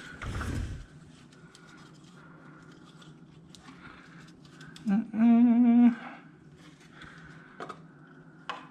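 A man hums a single wavering note for about a second, midway through; it is the loudest sound. Faint clicks of wires and parts being handled come and go, and a short low thump or blow sounds right at the start.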